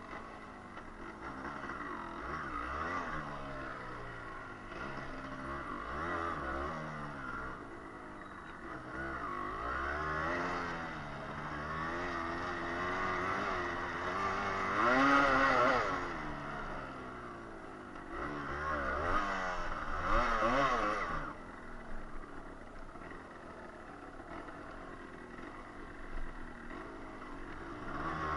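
The engine of a 125 cc Yamaha trail motorcycle, heard on board, pulling away and revving up and down as it climbs a grassy slope. It is loudest about 15 seconds in and again around 20 seconds.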